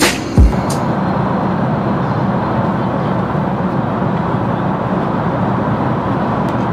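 Music ends with a last bass thump less than a second in. After that, the steady cabin noise of an airliner in flight: an even rush of engines and airflow.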